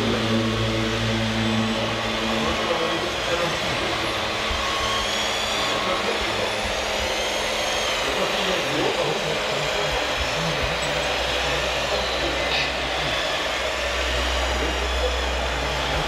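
Scale RC Komatsu hydraulic excavator working: the steady hum and whine of its hydraulic drive, changing pitch as the arm and bucket move, with a babble of voices in the background.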